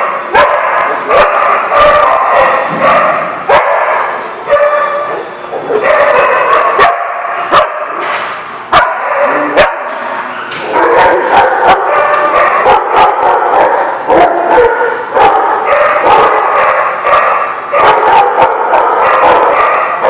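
Several dogs barking and yipping over one another, loud and nearly without pause, with a brief lull about halfway through.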